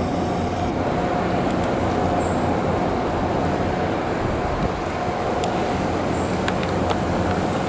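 Steady city street noise: a continuous rumble of traffic with a faint steady tone and a few light clicks.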